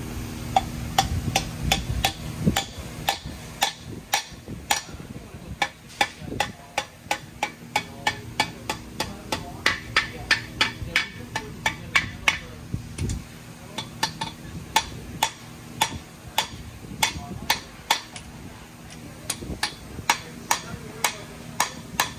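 Steady hammer taps on a metal driver, about two to three a second with a couple of short pauses, driving a part into a bore of a bare cast-iron Ford 351 Cleveland engine block.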